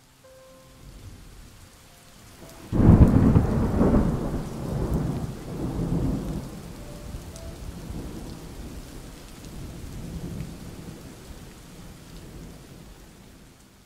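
A thunderclap about three seconds in, its low rumble swelling a few times and then fading slowly, over a steady hiss of rain.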